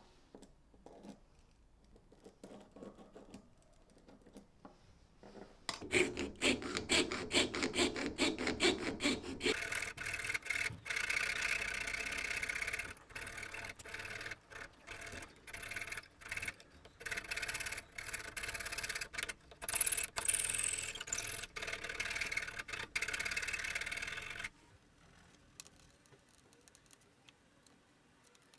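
A fine saw blade cutting through a thin hardwood handle scale: faint handling sounds at first, then about six seconds in a fast run of rasping strokes that turns into steadier, louder cutting with short breaks, stopping well before the end.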